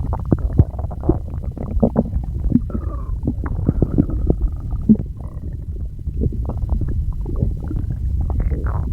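Human stomach growling and gurgling: a steady low rumble with many quick bubbling pops, and a few short pitched gurgles.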